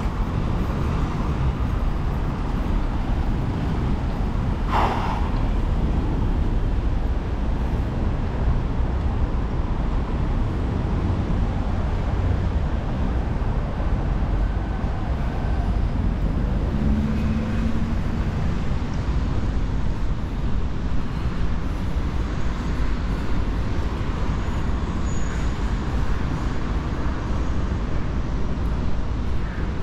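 Steady road-traffic rumble from passing vehicles, with a brief sharp sound about five seconds in.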